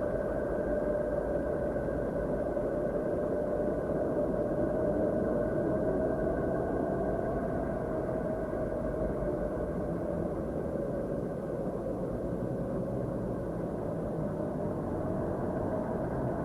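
Steady droning space ambience presented as the sound of the planet Saturn: a dense rumble with a faint held tone that sags slightly in pitch and comes back.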